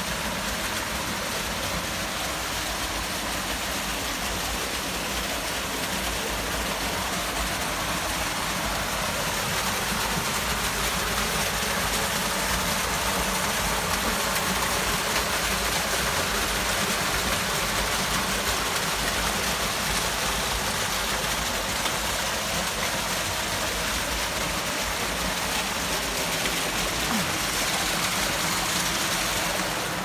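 Small waterfall splashing down a narrow cleft between boulders: a steady rush of falling water.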